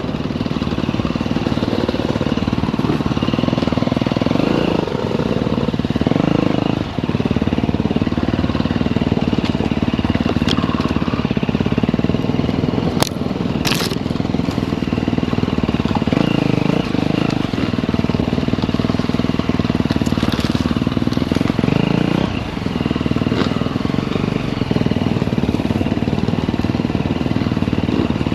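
Dirt bike engine running as the bike is ridden off-road, the throttle opening and closing. Two sharp clicks sound about halfway through.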